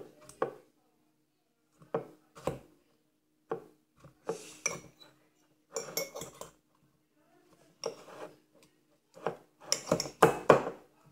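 A metal utensil knocking and scraping against the inside of a ceramic mug in short, irregular clusters, densest near the end, as apples are mashed to press out their juice.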